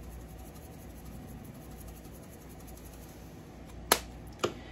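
Two sharp clicks about half a second apart near the end, the first the louder, from kitchen items being handled on the counter, over a steady low hum.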